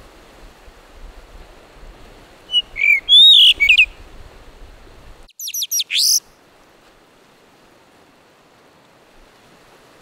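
Male blue rock thrush singing: a phrase of clear whistled notes gliding up and down, then a quick run of high sweeping notes a couple of seconds later. Surf washes on the rocks beneath the song.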